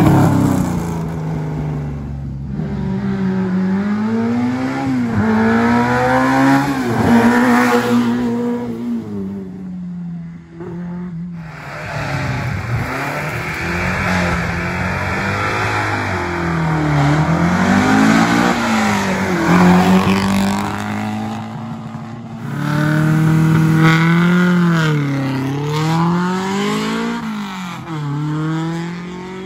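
Rally car engines under hard acceleration, the revs climbing and dropping over and over with gear changes, in several separate stretches with abrupt cuts between them.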